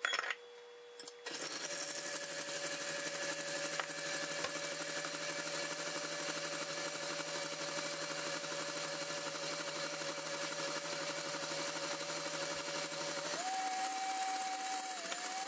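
KitchenAid Classic stand mixer with a wire whip whipping heavy cream. A few clicks come as the bowl is set in place, then the motor starts about a second in and runs with a steady whine, stepping up to a higher speed and pitch near the end.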